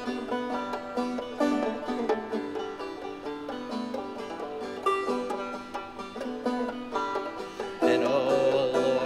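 Banjo picking in an instrumental passage of a folk song, with no singing. Near the end the music grows louder and fuller.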